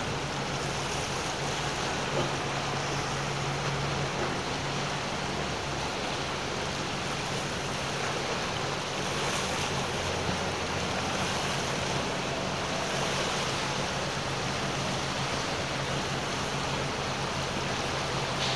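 Strong outgoing tidal current rushing through an ocean inlet: a steady churning wash of water like a whitewater rapid. A low, steady outboard motor hum runs underneath, clearest in the first few seconds.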